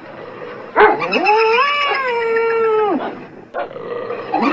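A long, drawn-out animal howl that rises, holds for about two seconds and then drops away, with a sharp click just before it begins. Another call starts rising near the end.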